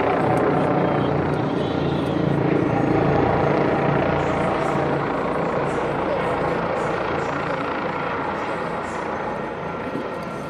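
Airbus H160 twin-turbine helicopter (two Safran Arrano 1A turboshafts) flying overhead: steady rotor and turbine noise, growing a little fainter over the last few seconds.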